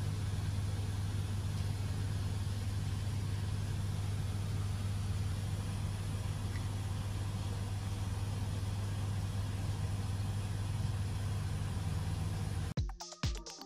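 A steady, unchanging low hum with a faint hiss over it. About a second before the end it cuts off and electronic music with a beat starts.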